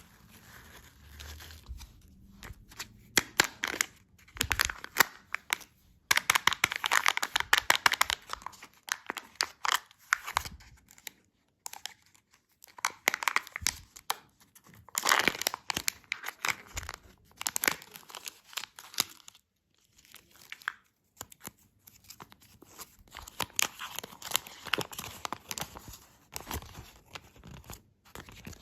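Candy packaging being torn open and crinkled by hand, close up: bursts of dense crackling, each a second or two long, with short pauses between.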